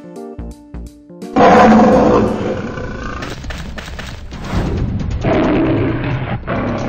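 Big-cat roar sound effects, a tiger's and then a lion's, over background music. A loud roar starts suddenly about a second and a half in and fades over a couple of seconds, and a second roar swells up past the middle.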